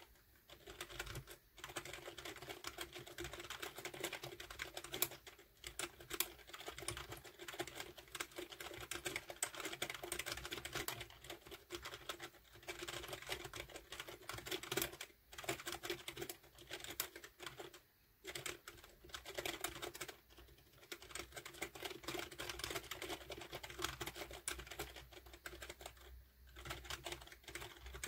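Fast, continuous typing on a membrane computer keyboard: a dense run of key presses with a few brief pauses.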